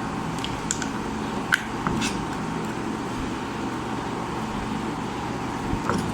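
Steady background hum with a few light clicks and taps of hand tools working on an opened AC run capacitor's casing.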